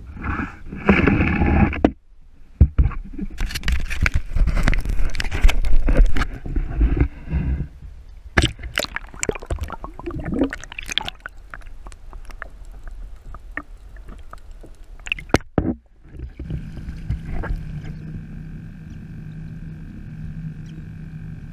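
Water splashing and sloshing against a sit-on-top kayak, with many knocks and bumps of gear handled against the hull. From about two-thirds of the way in, a steady hum with a few held tones takes over.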